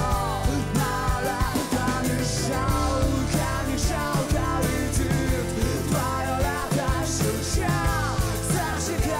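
Live acoustic rock band playing: acoustic guitar, bass and drums with percussion, with a melody line over a steady beat and cymbal splashes now and then.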